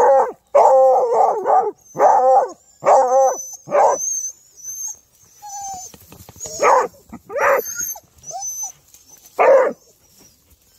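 Hunting dog, an American foxhound, baying on the trail as it nears the quarry's burrow. A run of drawn-out howls fills the first four seconds, then three shorter bays follow, spaced a second or two apart.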